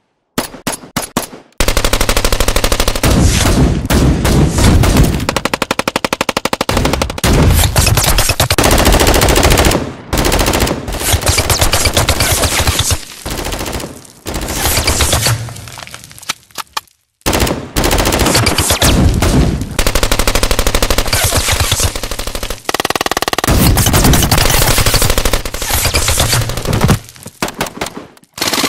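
Automatic gunfire in long, rapid bursts with short pauses between them, starting about a second and a half in.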